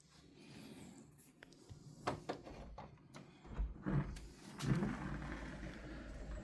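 Scattered knocks and clicks of a window or door being opened by hand, followed by a low steady rumble from about three and a half seconds in.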